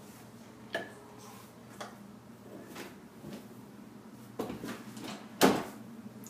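Footsteps and handling knocks of someone walking with a handheld tablet: a light knock about once a second, then two heavier thumps near the end, the second the loudest.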